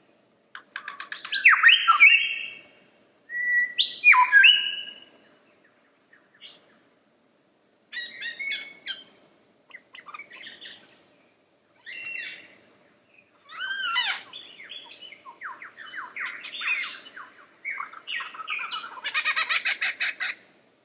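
Lyrebird singing a string of varied, loud phrases: sweeping whistled notes, rapid stuttering trills and clicking runs, with a pause of a few seconds early on.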